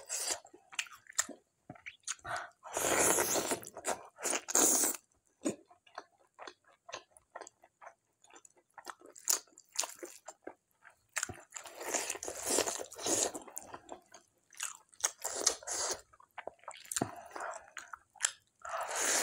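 Close-up eating: wet chewing, lip smacks and mouth clicks from a person eating dhido and mutton curry by hand. Longer, louder wet bursts come about three seconds in and again around twelve seconds.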